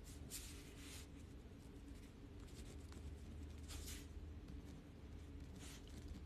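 Quiet room tone with a steady low hum, and three faint, brief hissy rustles: one near the start, one about four seconds in and one near the end.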